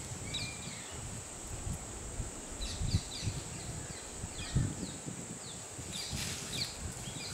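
Outdoor nature ambience: a steady high insect drone with many short bird chirps over it, and irregular low rumbles and thuds underneath.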